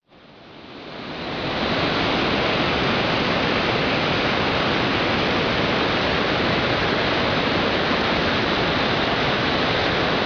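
Steady rushing water noise that fades in over the first two seconds and then holds even.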